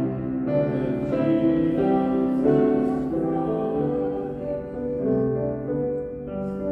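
Keyboard instrument playing the closing hymn in held chords that change every half second or so.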